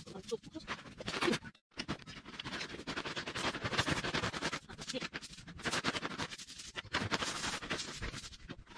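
Crushed stone pouring out of a plastic sack into a hole in the soil: a dense, continuous rattle and scrape of small stones. It breaks off briefly about one and a half seconds in.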